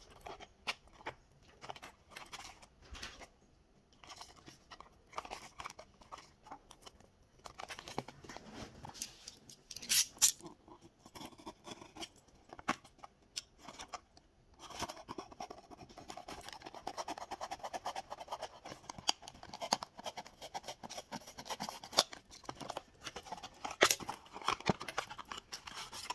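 Small cardboard boxes being handled and opened by hand: scattered clicks, taps and scrapes of card. From about halfway there is a longer stretch of continuous rustling and scraping as a box is cut or torn open.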